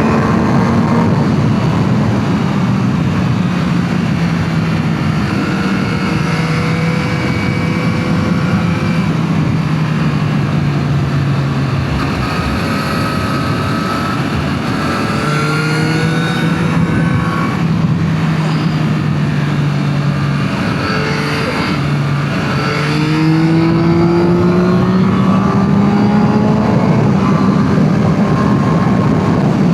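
Yamaha MT-09 SP's 890 cc inline three-cylinder engine pulling along under way through its stock exhaust, with the rush of the ride around it. The engine note holds fairly steady and sags slightly through the middle, then rises as the bike accelerates about three quarters of the way in.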